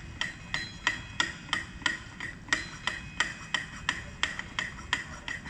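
On-car brake lathe running and turning the brake rotor on the vehicle's hub, with a sharp, ringing metallic click about three times a second over a low hum.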